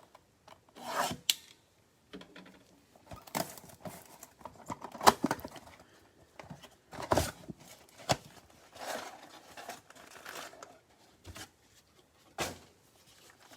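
A trading-card box being opened by hand: wrapping tearing and crinkling, with cardboard and card packs rubbing and clicking in irregular bursts.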